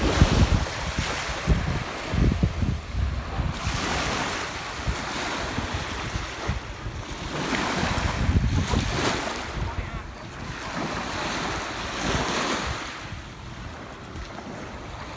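Waves breaking and washing on the Lake Michigan shore, swelling and fading every few seconds, with gusts of wind buffeting the microphone.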